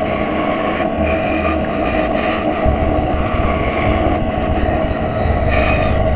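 Band saw running steadily with a constant whine while its narrow blade cuts a mahogany handle blank, the sound of the cut rising and falling a little as the piece is steered along a curve.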